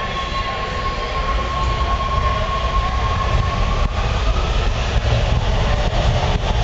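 Eight-car Washington Metro subway train approaching the station, a low rumble slowly growing louder. Over it runs a steady high whine that bends upward in pitch about four seconds in.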